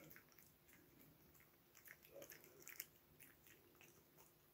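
Jack Russell terrier chewing a dried chicken breast fillet treat: faint, irregular clicks of its teeth working the chewy strip.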